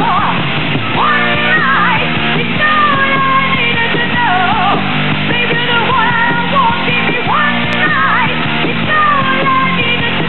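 Hard rock band playing live: a distorted electric lead guitar solo, its notes bending and sliding in pitch, over bass guitar and drums.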